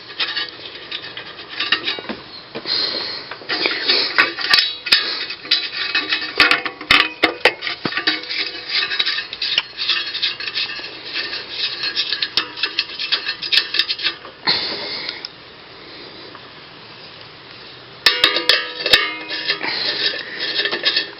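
Metal tools and small metal parts clinking and clattering, with runs of quick clicks, as exhaust bolts on a small mower engine are done up with a 10mm socket. The sound drops away briefly after about fifteen seconds, then the clatter resumes.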